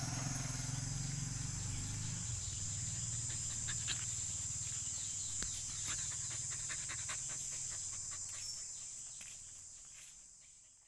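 Dog digging in sand with its front paws: scattered short scrapes and scratches, over a steady high insect drone. A low hum sits underneath for the first couple of seconds, and everything fades out over the last few seconds.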